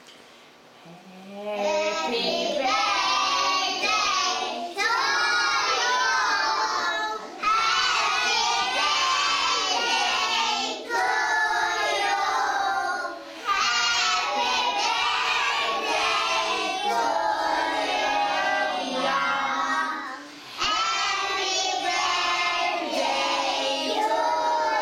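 A group of young children singing a birthday song together, in phrases a few seconds long with short breaks between them.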